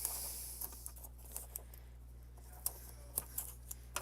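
Scattered light clicks and rustles of cardstock pieces being handled and pressed into place.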